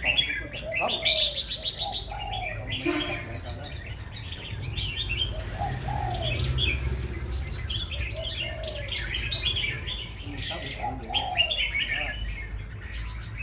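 Several caged songbirds chirping and calling together: bright high chirps over short, repeated falling calls, with a quick rattling trill near the start.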